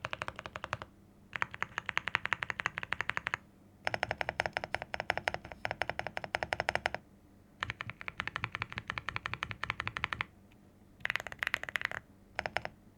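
Fast typing on a Weikav Nut65 mechanical keyboard with lubed Boba U4T tactile switches on the modifiers and Gateron Quinn tactile switches on the alphas: rapid runs of keystroke clacks in several bursts, with short pauses between them.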